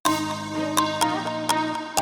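Instrumental background music: sharply struck or plucked notes about twice a second over held, sustained tones.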